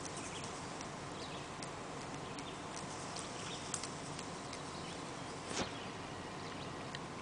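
Quiet outdoor background: a steady hiss with a few faint bird chirps, and one short thump about five and a half seconds in.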